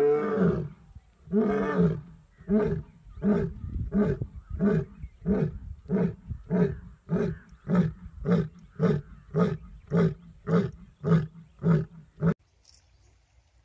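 Asiatic lion roaring: two long, deep roars, then a train of about seventeen short grunting roars a little over half a second apart, stopping near the end.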